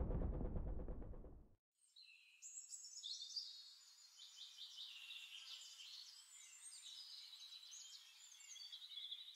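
A deep rumble fades out in the first second and a half; then birds sing and chirp, several at once, softly and without a break.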